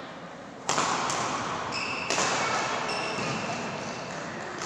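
Badminton rally: racket strings hitting the shuttlecock with sharp cracks, two loud hits about a second and a half apart and a lighter one between, each ringing on in the large hall. Brief high-pitched squeaks of shoes on the court mat come in between.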